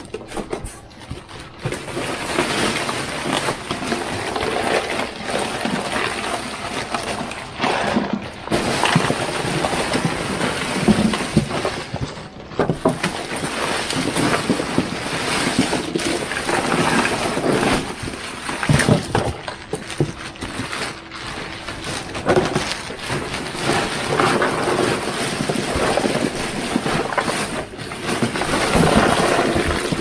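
Ice cubes clattering as bagged ice is emptied into a styrofoam cooler and a plastic cooler, with the plastic ice bags crinkling. A dense run of small clicks and rustles, with louder clatters now and then.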